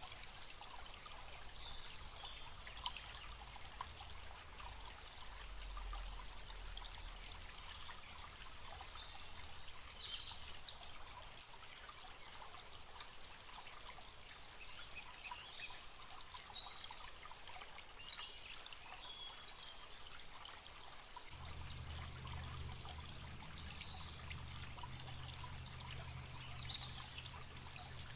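Forest stream trickling and babbling steadily, with small birds giving short high chirps now and then. A faint low hum comes in about three-quarters of the way through.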